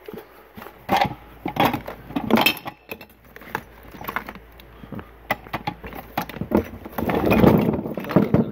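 Small hard objects being handled and shifted about in a trunk: scattered clinks, knocks and rattles, with louder rustling and shuffling about seven seconds in as a cloth is pulled aside.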